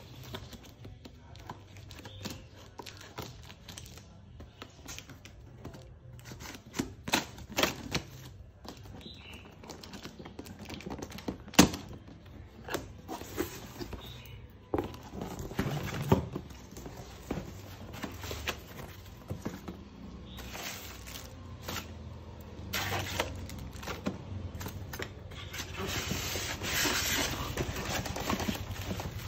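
Cardboard shipping box being opened by hand: tape and flaps scraping and rustling, with scattered sharp taps and knocks, one much louder than the rest. From about 23 seconds in, a denser, hissing scrape as the styrofoam packing insert is worked out of the box.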